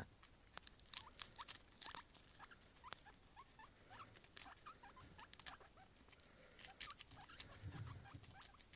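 Guinea pigs nibbling a hand-held piece of sweetcorn cob: quick, faint crunching clicks of teeth on the kernels, with a few short rising squeaks between about one and five seconds in.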